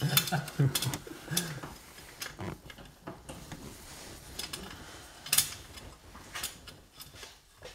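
Irregular sharp metallic clicks and clinks of a hand tool working a torque converter bolt through the access window behind the starter of a 2005 Subaru Outback's engine.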